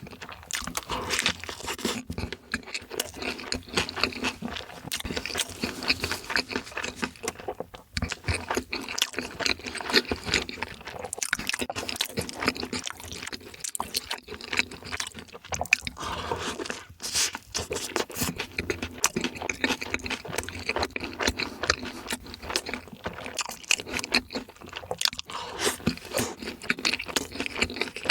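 Close-miked, wet chewing and crunching of crispy chicken: repeated irregular crunches and smacking bites.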